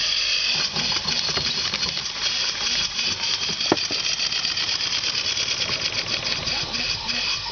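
PM Research No. 4 model steam engine running fast, its exhaust steam hissing in rapid chuffs with a steady mechanical clatter from the belt-driven small corn sheller it is powering. One sharper click about halfway through.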